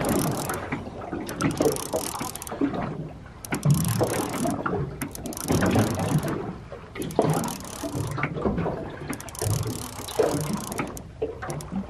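Fishing reel being wound in repeated bursts, one every second or two, as a hooked fish is brought up on a heavily bent rod.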